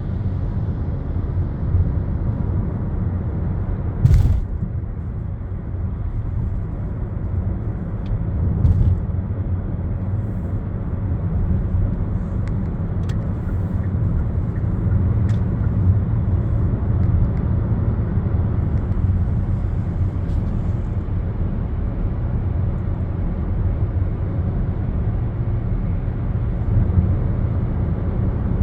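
Steady low rumble of a moving vehicle, with a single knock about four seconds in and a few faint clicks.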